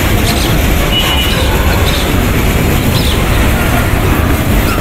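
Goods train of open-top freight wagons rolling past, a steady rumble of wheels on rail.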